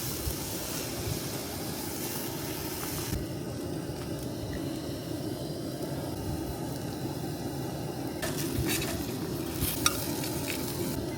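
Food sizzling in a pan while it is stirred, with a few sharp clicks of utensil on pan about eight to ten seconds in.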